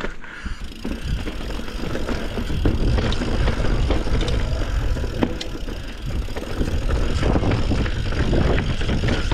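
A mountain bike being ridden along a rocky dirt trail: a steady rumble of wind buffeting the microphone, with tyre noise and scattered knocks and rattles as the bike goes over rocks and roots.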